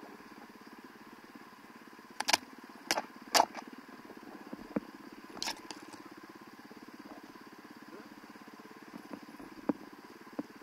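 Dirt bike engine idling steadily, with a few sharp clicks and knocks: three close together about two to three and a half seconds in, another near five and a half seconds.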